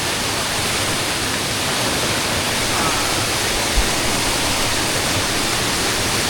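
A waterfall rushing: a loud, steady wash of falling water, with one brief low bump a little past the middle.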